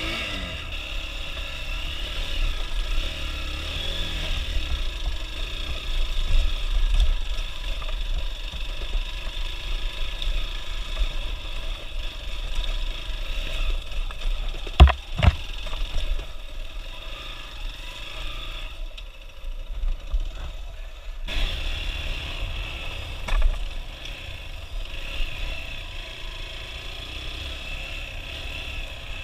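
Hero XPulse 200 single-cylinder motorcycle engine running while riding a rough dirt trail, with wind hissing on the microphone. Two sharp knocks come about fifteen seconds in, and everything goes quieter for about two seconds near twenty seconds in.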